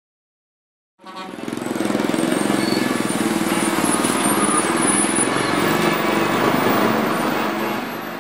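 Street traffic noise: vehicle engines running steadily. It fades in about a second in and dies down near the end.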